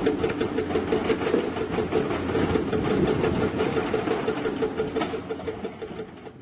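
Heavy excavator running, its diesel engine and machinery making a fast, even clatter that fades near the end.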